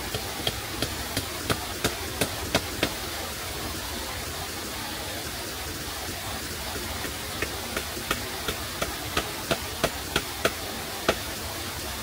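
Sharp knocks of a hand tool striking wood, about three a second, in two runs with a pause of about four seconds between them, over a steady rushing hiss.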